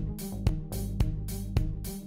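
Intro music with a steady beat of about two hits a second over a bass line.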